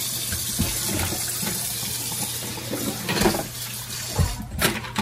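Kitchen tap running full into a stainless steel sink as a walleye is rinsed under the stream, with a few knocks and thumps from the fish being handled in the sink in the last couple of seconds. The water cuts off at the end.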